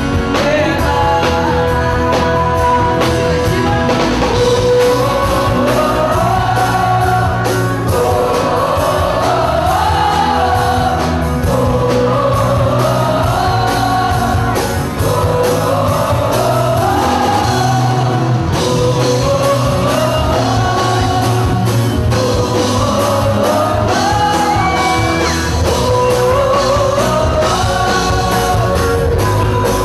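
Live concert music: a woman singing a Catholic worship song over a full band with a steady bass and drum beat.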